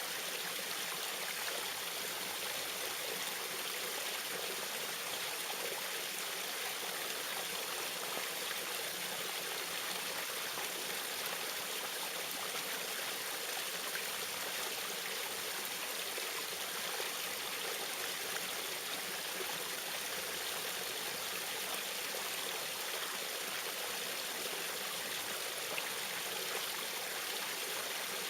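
Small waterfall running steadily: a constant rush of falling, splashing water.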